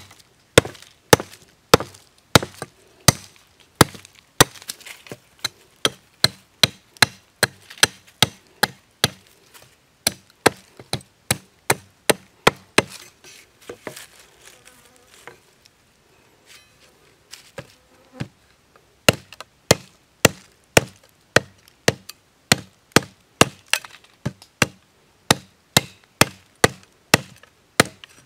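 Machete blade chopping and shaving a freshly stripped forked stick against a log, sharp strokes about two a second. The chopping stops for a few seconds in the middle, then resumes.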